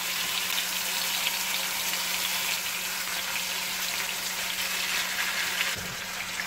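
Marinated chicken pieces sizzling and crackling in hot oil as they are laid into the pan one after another, the start of shallow-frying.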